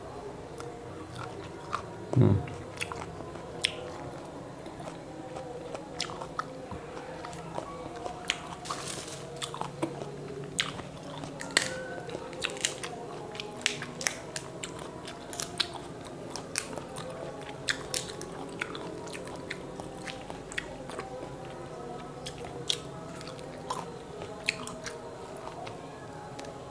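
Close-up eating of matoa fruit: chewing and mouth sounds with many short sharp clicks as the thin-shelled fruits are peeled and bitten, and one low thump about two seconds in.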